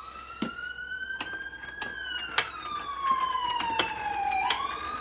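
A power tool spinning a 1961 Harley-Davidson XLCH Sportster engine over. Its motor whine rises, sinks slowly in pitch, then picks up again near the end, with a regular click about every two-thirds of a second from the turning engine. The engine is turning more freely now that the cam's thrust washer has been lifted back up, rather than sitting cocked and making the cam rub.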